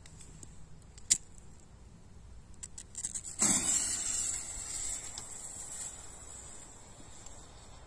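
Firework fuse being lit: a sharp click about a second in, then the fuse catches about three and a half seconds in with a loud hiss of sparks that dies down over the next couple of seconds.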